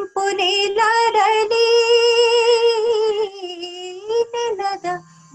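A woman singing a Kannada song unaccompanied, drawing out long held notes with a slight vibrato. The pitch steps down a little past three seconds in, and the voice breaks off briefly near the end.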